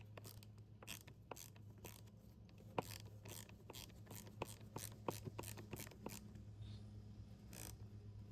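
Faint, irregular clicking and scraping of a wrench turning the 8 mm nuts that hold the plastic air filter housing of a Stihl 021 chainsaw, snugged down without overtightening.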